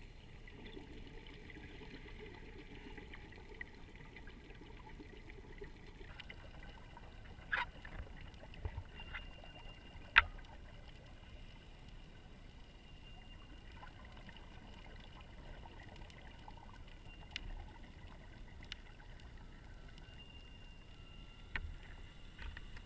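Muffled underwater ambience picked up by an action camera inside its sealed housing: a steady low hiss with a few sharp clicks or knocks, the loudest about ten seconds in.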